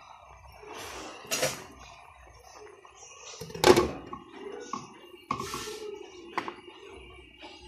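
Glass pot lid set down on a wok, a loud clink of glass on metal about halfway through, with lighter knocks of lid and pan before and after.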